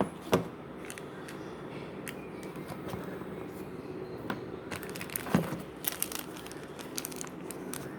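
Packaging being handled: plastic crinkling and rustling, with a few sharp clicks, busier in the second half.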